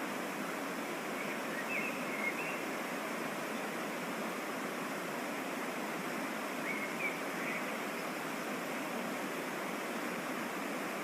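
Waterfall and mountain stream running with a steady, even rush of water. A few faint, short high chirps come through about two seconds and seven seconds in.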